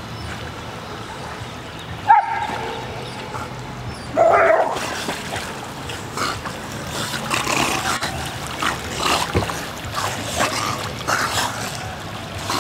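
A dog gives two short, loud barks, about two and four seconds in. After them come irregular splashes of Entlebucher Mountain Dogs paddling through river water.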